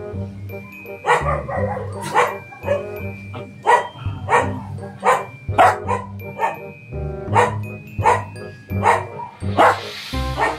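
Dog barking repeatedly, one or two sharp barks a second, over background music with held tones and a steady bass.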